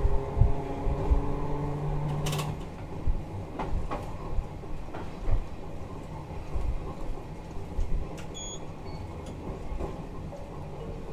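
Toyohashi Railway 3200-series tram running: its steady motor and gear tones cut off about two and a half seconds in with a short hiss, leaving a lower rumble with scattered knocks and rattles. A short high beep sounds about eight seconds in.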